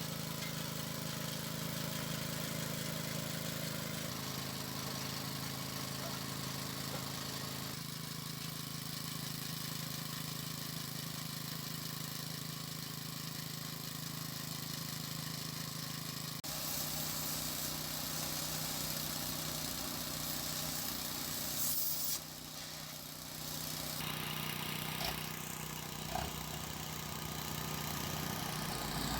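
An engine idling steadily, with an abrupt change about halfway through to a noisier, hissier engine sound.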